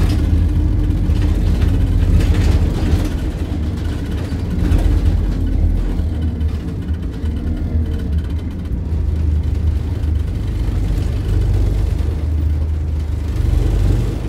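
Dennis Dart single-deck bus's diesel engine running while the bus drives, heard from on board as a steady low drone that swells and eases a little.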